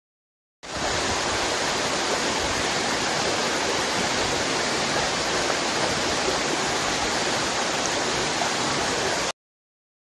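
Fast, shallow stream water rushing over rock around a foot standing in it: a steady, even rush that fades in just after the start and cuts off abruptly near the end.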